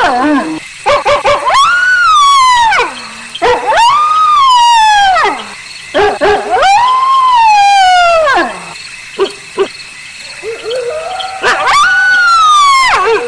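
Wolves howling: four long howls that rise and then slowly fall, with short yips between them.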